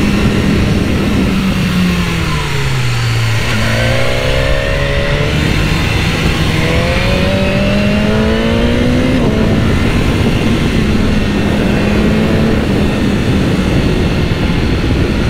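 BMW S1000R's inline-four engine heard from the rider's position, with heavy wind noise on the microphone. The revs drop about two seconds in, climb twice as the bike accelerates between about four and nine seconds in, then hold steady at a cruise.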